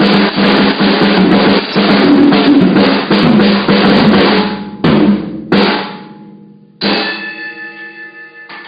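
Drum kit played in a fast, dense fill of snare and bass drum hits. Near five seconds it breaks into two separate hits, then one last hit about seven seconds in rings out and fades. The bare room makes it boomy.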